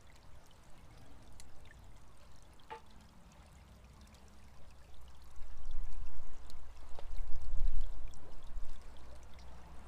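Water pouring and trickling steadily from a horizontal well, with scattered small crackles from a wood fire. One hollow knock with a short ring comes a little under three seconds in, and a deep low rumble swells up from about halfway through.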